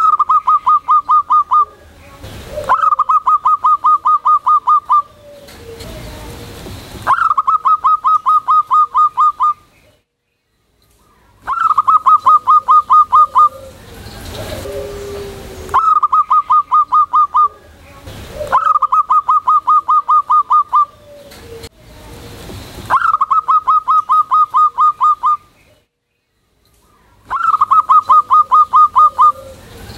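Local zebra dove (perkutut) singing loudly and in full form: repeated phrases of rapid staccato cooing notes, each about two seconds long and opening with a short low note, coming every three to four seconds, eight times. A hiss of background noise fills some of the gaps.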